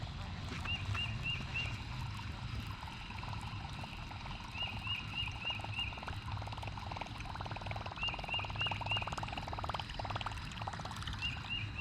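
Water trickling and splashing close by, with a high chirping animal call repeated in short runs of about four notes every few seconds.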